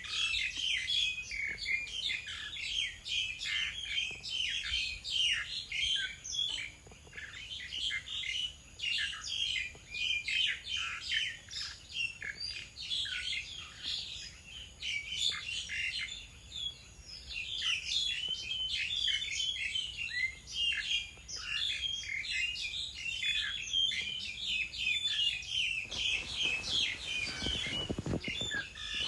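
Many small birds chirping and twittering at once, a dense overlapping run of short high calls. A short low rumble joins in near the end.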